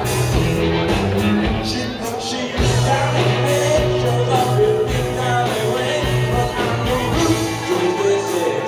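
Live rock band playing with electric guitars, electric bass and drum kit, the bass holding long low notes under the guitars and drums.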